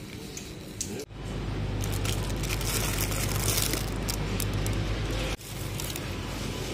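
Shop background noise with a steady low hum and the rustle of plastic produce packaging being handled. The sound changes abruptly twice, about a second in and near the end.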